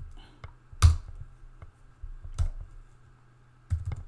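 Computer keyboard keystrokes, sparse and separate: a sharp key press about a second in, another a little before the middle of the last half, then a quick run of key presses near the end.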